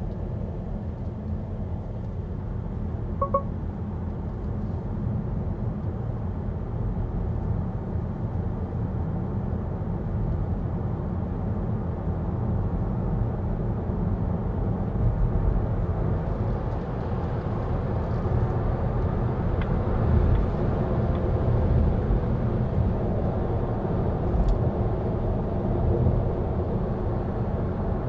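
Volvo EX30 electric car driving: a steady low road and tyre rumble with no engine note, growing slightly louder as it goes. A short beep sounds about three seconds in.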